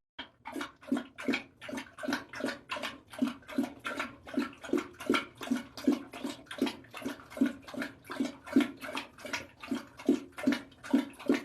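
A dog lapping water in a steady rhythm, about three and a half laps a second.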